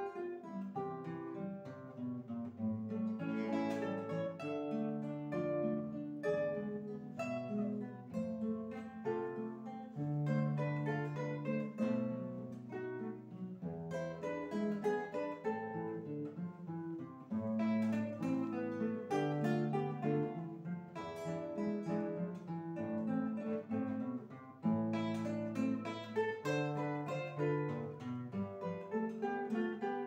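Two classical guitars playing a duet: a melody of plucked notes over a bass line, without pause.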